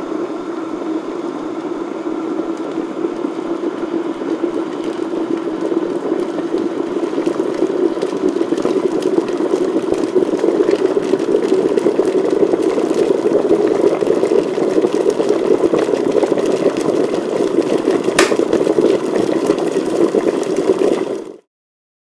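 Electric kettle at a full boil: water bubbling with a steady rushing rumble that grows louder over the first ten seconds or so. A single sharp click comes near the end, and the sound cuts off suddenly a few seconds later.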